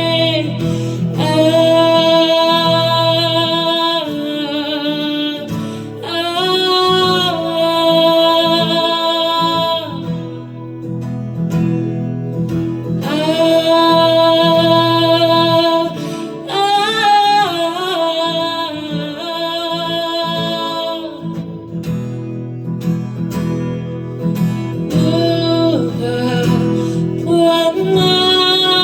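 A live band song: a singer holding long notes with vibrato, in phrases of a few seconds each, over guitar accompaniment.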